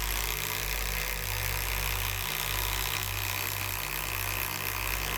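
Kobalt next-gen 24V brushless impact driver (KID 2024A-03) hammering steadily as it drives a 1/4 inch by 6 inch lag screw into pressure-treated lumber, its impact mechanism rattling under continuous load.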